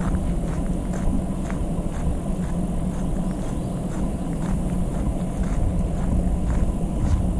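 Footsteps on gravel, about two a second, over a steady low rumble.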